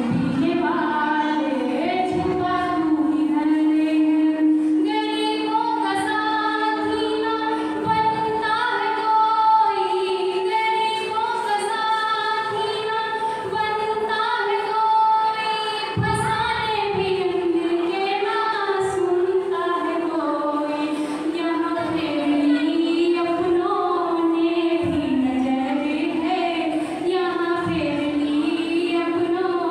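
A woman singing a Hindi song solo, with no instrumental accompaniment.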